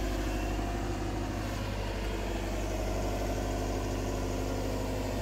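Diesel engine of a Caterpillar wheeled excavator idling steadily, an even, unchanging hum.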